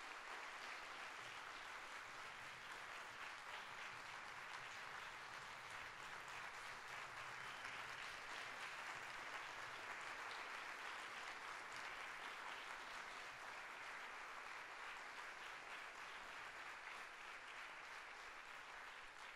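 Audience applauding steadily, faint and even throughout.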